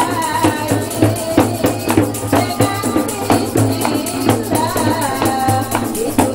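A woman singing into a microphone, amplified, over a steady beat of hand-struck frame drums (rebana) and a jingling tambourine.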